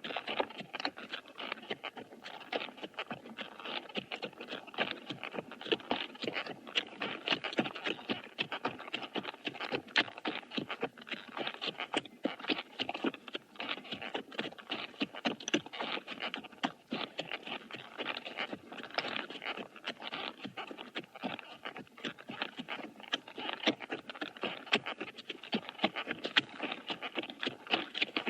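Horse walking at a steady pace, its hooves striking the ground in a continuous run of knocks.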